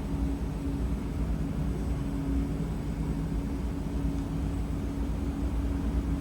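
A steady machine hum over a low rumble.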